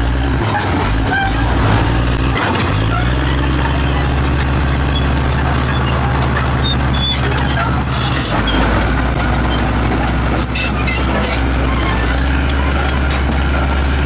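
Komatsu D65P bulldozer's diesel engine running under load while the blade pushes rocks and dirt, the engine note shifting twice, with scattered clanks and scraping.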